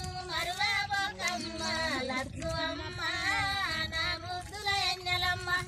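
Women's voices singing a song together, several voices holding and bending long notes, over a low background rumble.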